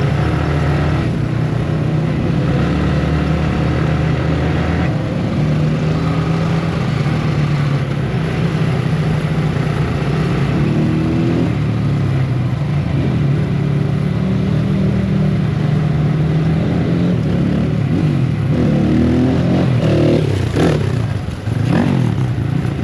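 Motorcycle ridden on the road: the single-cylinder engine of a Yamaha MT-15 with an aftermarket Akrapovic exhaust runs steadily under way. Its pitch rises and falls over the last few seconds as the throttle changes.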